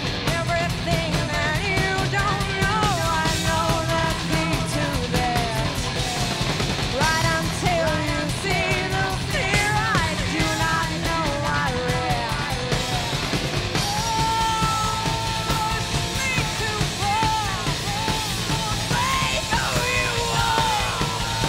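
Heavy metal band playing live: distorted electric guitars, bass and drums, with a melodic lead line over them.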